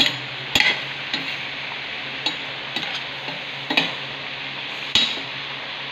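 Chicken liver adobo bubbling and sizzling in a metal pot with a steady hiss, as it simmers with all its ingredients in. A metal utensil clinks against the pot about half a dozen times.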